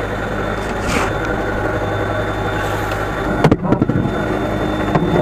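Boat engine running steadily with a low hum, with a short clatter of knocks about three and a half seconds in.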